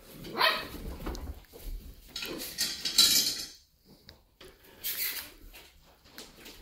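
Two Cane Corso dogs play-wrestling: scuffling and short noisy bursts of contact and breath. The loudest burst comes about three seconds in, and there is a brief lull about four seconds in.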